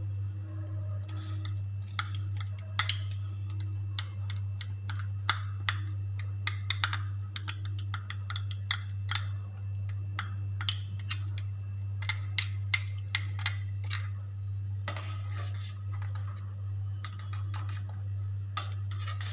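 Metal spoon clinking and scraping against a ribbed glass bowl in many sharp taps as coarsely ground soaked rice is knocked out into a pot of boiling milk. Toward the end comes a rougher scraping as the mixture is stirred in the steel pot. A steady low hum sits underneath.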